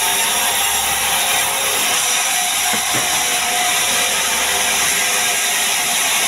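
Sawmill band saw running steadily as it rips lengthwise through a large log: a continuous loud, hissing whine of the blade in the wood.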